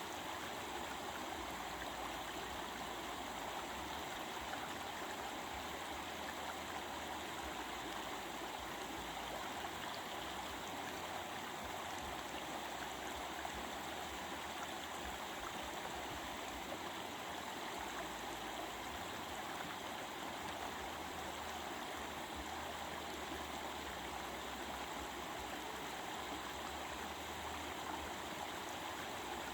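Stream water flowing steadily, an even babbling rush with no breaks.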